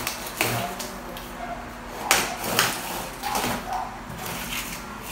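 A large cardboard box being handled on a hard floor: a few short scrapes and rustles of cardboard as hands push and shift it, the loudest about two seconds in.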